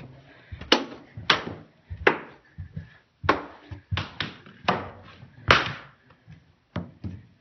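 Tip of an NFB-style long white cane tapping the floor as it is swung side to side in walking rhythm: about eight sharp taps, roughly one every 0.7 s, getting fewer near the end.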